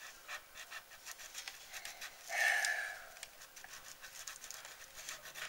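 Crayola crayon scratching on a coloring book page in many short, quick strokes, with a louder breathy exhale about halfway through.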